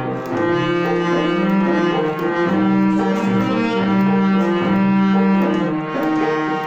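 Harmonium playing a melodic interlude: a run of held notes, stepping from one pitch to the next.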